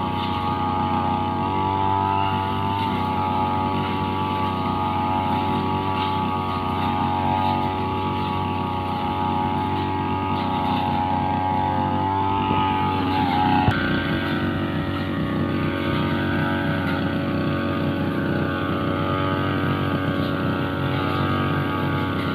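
Two-stroke Riu brushcutter engine running steadily at high speed while cutting grass. The pitch wavers a little, and a sharp knock about 14 seconds in is followed by a change in engine note.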